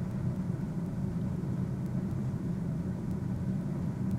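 Steady low rumble with no change in pitch or level, like engine or machinery noise in the background.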